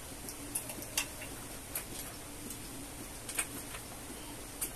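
Scattered light clicks and ticks of small screws and a hand tool being handled and worked into the metal frame under a gaming chair's seat, irregular, the sharpest about a second in.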